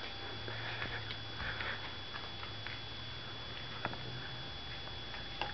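Abyssinian kitten growling over a toy that is being taken from it: a low, steady rumble with breathy rasps early on that fades out near the end. Two short clicks, one about four seconds in and one at the very end.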